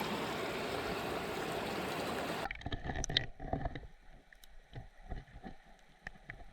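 Steady rush of flowing creek water that cuts off abruptly about two and a half seconds in. After that come quieter, scattered muffled knocks and small ticks.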